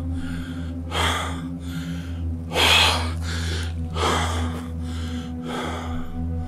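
A man breathing heavily, with deep, gasping breaths roughly every one to one and a half seconds.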